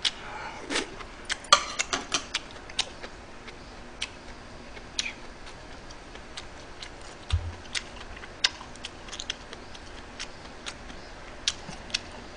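Close-miked eating: irregular sharp clicks and taps of metal chopsticks and a spoon against the pot and dishes, mixed with chewing, and a dull bump about seven seconds in.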